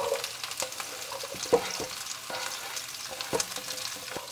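Diced onion sizzling and crackling in hot oil in a pot as it is slid off a wooden cutting board, with two sharp knocks about a second and a half in and again past three seconds.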